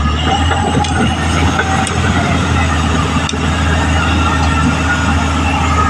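Caterpillar D6R XL bulldozer running under steady load: a continuous low diesel drone with a wavering whine above it and a few sharp clanks, about one, two and three seconds in.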